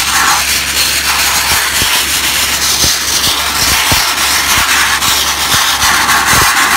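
Dustless (wet abrasive) blasting nozzle running continuously, a loud steady hiss of the water-and-grit jet striking a steel wheel.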